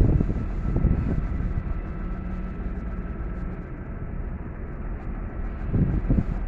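Steady low rumble of vehicle engines in traffic, with a faint steady hum and a couple of louder swells near the start and near the end.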